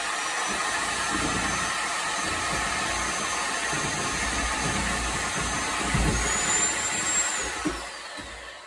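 Corded reciprocating saw running steadily as it cuts into a plastered wall. Near the end its whine falls away gradually as the saw is released and winds down.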